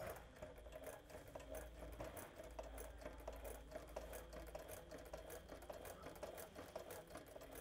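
Sewing machine stitching steadily through layered HDPE shade cloth, a quick, even run of faint needle clicks over a low motor hum.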